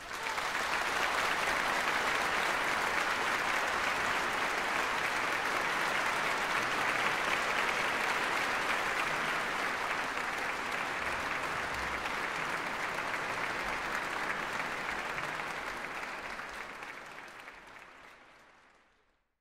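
Shallow river water running over stones, a steady rushing babble that fades out over the last few seconds.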